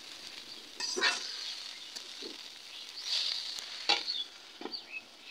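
A metal spatula stirring chopped kalai greens in a metal karahi as they fry, with a light sizzle. A few sharp clicks of the spatula on the pan come about a second in and twice near the end.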